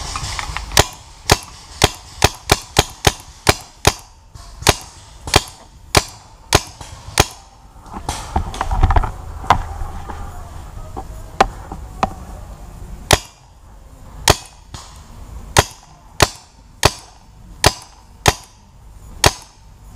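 Tippmann 98 Custom paintball marker firing a long string of sharp single shots, a quick run of about three a second in the first few seconds, then slower, about one shot a second.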